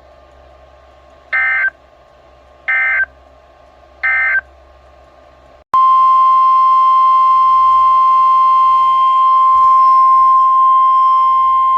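Three short, identical bursts of EAS/SAME digital data tones, the end-of-message code of a NOAA Weather Radio alert, about a second and a half apart. After an abrupt cut about six seconds in, the steady 1050 Hz NOAA Weather Radio warning alarm tone starts and holds, signalling that a new warning follows.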